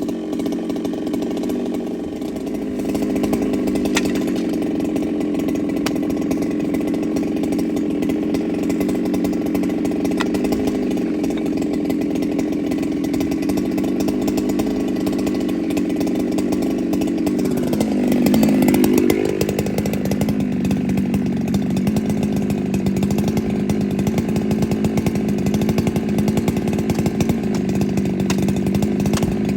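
Ported Husqvarna 395 two-stroke chainsaw running steadily at high revs. Its pitch sags and then climbs back about eighteen seconds in, and it carries on at a steady speed after that.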